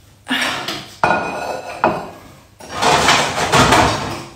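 Ceramic bowls and dishes knocking and clattering as a large serving bowl is pulled out of a crowded cupboard: three sharp knocks, then a longer rattle near the end.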